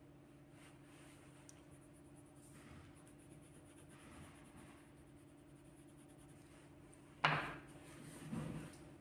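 A coloured pencil scratching faintly on paper, then a sharp knock about seven seconds in and a softer bump a second later.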